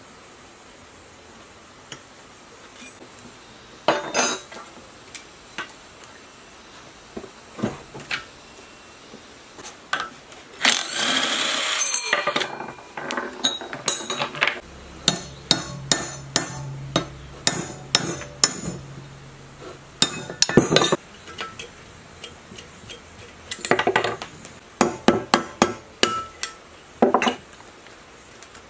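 Metal tools and engine parts clinking, tapping and knocking as a small air-cooled single-cylinder engine is taken apart by hand. There is a short burst of scraping about eleven seconds in, and a low steady hum with rapid clicks for several seconds in the middle.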